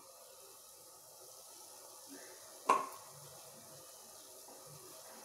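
A single ringing metal clink about three seconds in, as the idli stand knocks against the aluminium steamer pot while it is lowered in, over a faint steady hiss of water boiling in the pot.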